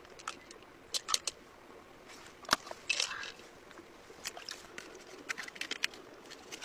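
Shells and a knife being handled on rock: scattered clicks and short scrapes, with one sharp click about two and a half seconds in and a quicker run of small clicks near the end as a closed pearl mussel is set to be pried open.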